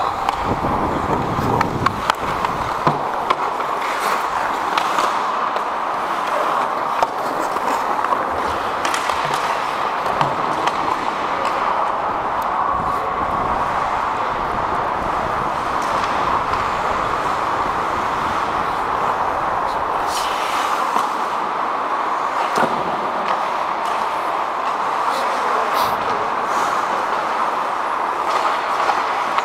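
Ice hockey play heard from a skating referee's helmet: a steady rush of skate and rink noise, broken by scattered sharp clacks of sticks and puck.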